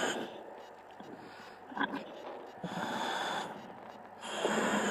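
A diver breathing through a diving helmet's demand regulator, heard over the diving comms: a regular hiss of gas with each breath, about every two seconds, with quieter pauses between.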